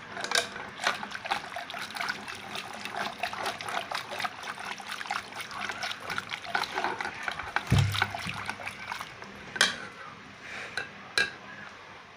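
Boiled pumpkin and tomato being churned in a pot with a wooden ghutni (dal masher): wet squelching with rapid, irregular knocks and scrapes against the pot. There is one heavier thump about eight seconds in.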